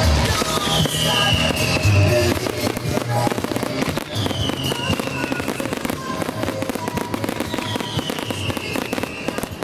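Fireworks display: a dense barrage of rapid crackles and pops from fountains, comets and bursting aerial shells going off together, with music playing behind.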